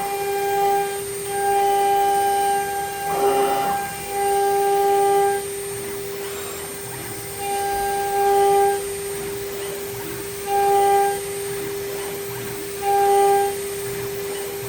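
CNC router's 3.5 kW spindle whining at one steady pitch while the NEMA 34 closed-loop stepper motors drive the axes in short moves, each a higher fixed-pitch whine that starts and stops abruptly, about seven times. A brief rougher burst sounds about three seconds in.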